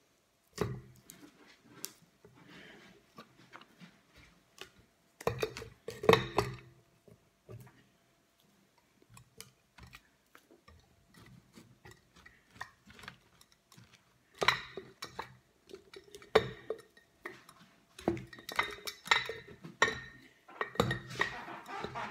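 Bath bombs being handled and set into a glass clip-top jar: scattered knocks and clinks of the balls against the glass and the table, in clusters with pauses between.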